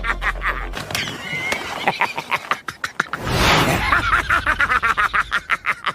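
Anime sound clip: a character's voice in rapid, choppy bursts, with a rushing noise about three seconds in.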